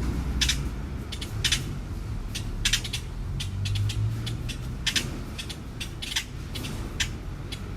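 Magpies giving short, harsh rasping calls, a dozen or so scattered through, over the steady low rumble of city traffic.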